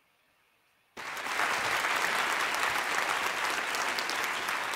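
Silence for about a second, then an audience applauding steadily.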